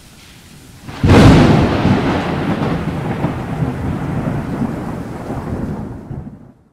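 Steady rain hiss, then a loud thunderclap about a second in that rumbles on and slowly dies away. The sound cuts off suddenly just before the end.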